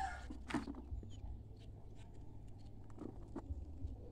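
Faint crumbling and soft taps as clumps of dry cow manure are scooped by hand and dropped into a plastic bucket. One knock about half a second in stands out; the rest are scattered small crackles.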